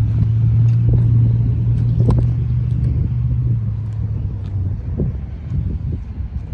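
Coal gondolas of a freight train rolling past close by: a steady low rumble of steel wheels on rail with a few sharp clanks, and a low hum that fades out about four and a half seconds in.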